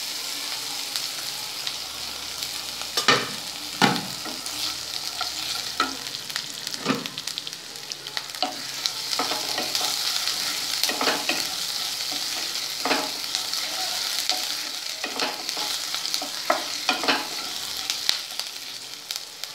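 Chopped onion, panch phoron and ginger-garlic paste sizzling in hot mustard oil in a non-stick kadai. A wooden spatula stirs them, scraping and knocking against the pan at irregular moments.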